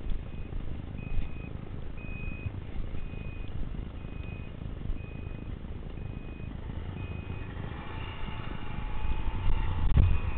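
Electronic beeping, one short high beep about every second, over a steady low rumble that grows louder near the end.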